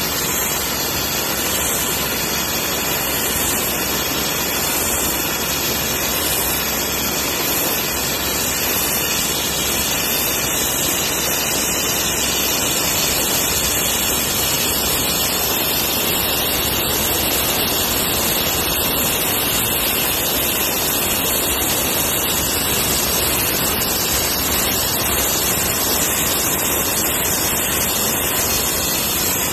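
Abrasive blaster nozzle stripping paint from a car's steel body panel: a loud, steady hiss of compressed air and grit that runs without a break.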